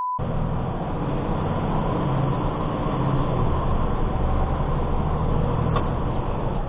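Semi truck's diesel engine running with road noise, heard from inside the cab while driving. A steady electronic beep cuts off at the very start, and there is a single light click near the end.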